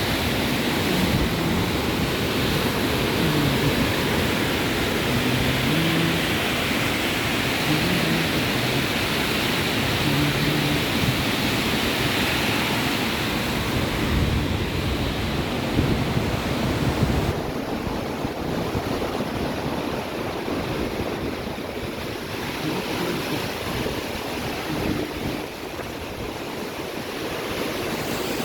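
River in flood rushing past, a steady noise of fast, churning water with wind on the microphone. The hiss turns duller about two-thirds of the way through.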